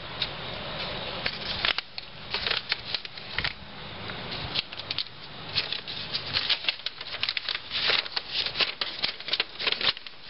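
Hands working on a workbench: irregular small clicks and rustles, turning into a dense rustling of paper sheets being picked up and unfolded in the second half.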